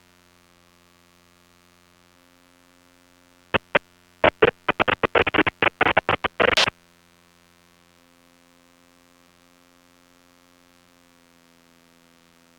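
Aircraft radio and intercom feed carrying a faint steady engine hum, broken by about three seconds of loud, choppy bursts, like a chopped-up radio transmission or the intercom cutting in and out, starting about three and a half seconds in.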